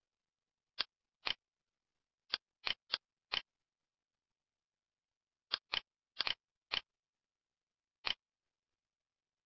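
Computer mouse clicks and keyboard keystrokes, sharp and isolated with silence between. A few clicks come in the first few seconds. A quick run of about six keystrokes comes past the middle, as a six-letter word is typed, and a single click comes near the end.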